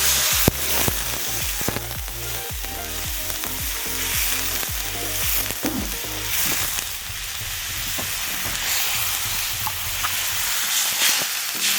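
Ground marauti paste with turmeric and salt sizzling in hot oil in a pan, stirred with a spoon that knocks and scrapes against the pan now and then.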